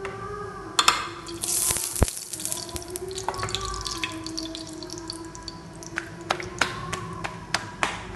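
Hands slapping a round of dough from palm to palm to flatten it: sharp pats about twice a second, beginning about six seconds in. Before that, a short burst of hiss and clatter.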